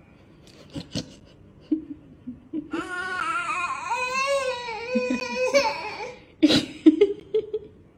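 A baby whining: a couple of light knocks about a second in, then one long, wavering, cry-like vocal lasting about three seconds, followed by short fussy sounds near the end.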